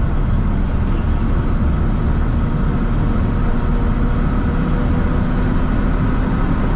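Engine and tyre noise inside a moving vehicle's cab: a steady low drone, with the engine note strengthening and rising slightly in the second half as the vehicle picks up speed on a clear road.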